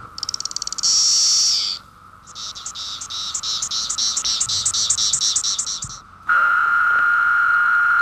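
Courtship songs of male Brood X periodical cicadas (Magicicada), three species one after another. First comes a burst of rapid ticks running into a short buzz, then a rhythmic pulsing call of about five pulses a second, then a loud steady buzz that drops in pitch at its end.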